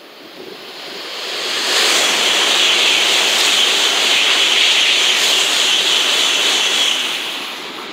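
N700A-series Shinkansen running through the station at high speed: a rushing hiss of air and wheel noise that swells over the first two seconds, stays loud for about five, then fades away.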